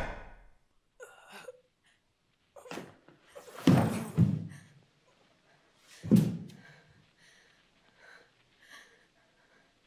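Two heavy impacts in a room: a long, doubled thud about four seconds in, then a sharper, louder bang about six seconds in that dies away quickly, with faint rustling and movement around them.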